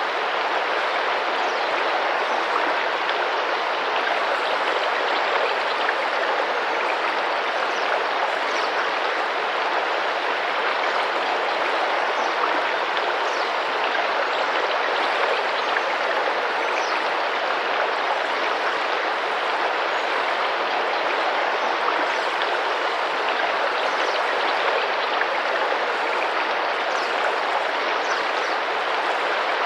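Tropical rainforest river running steadily over rocks, an even rush of splashing water. Faint, short high bird calls come through now and then.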